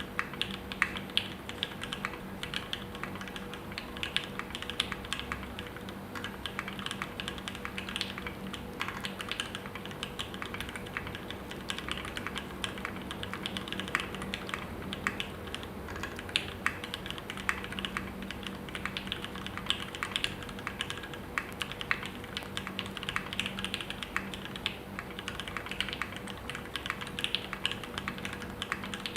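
Continuous typing on a KBDFans Tofu60 60% mechanical keyboard with Gateron Yellow linear switches on an aluminium plate: a steady, rapid run of keystroke clacks.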